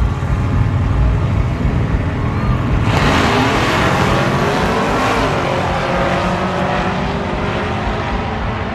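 Two drag-racing pickup trucks rumbling at the starting line, then about three seconds in launching at full throttle together, the engines suddenly much louder and rising in pitch as they pull away down the strip.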